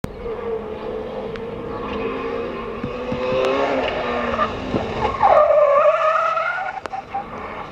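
Rally car engine at high revs closing in, pitch climbing, then about five seconds in the revs fall away as the car slides sideways off the bend and skids through the dirt verge. A sharp crack comes near the end, and the noise then drops off.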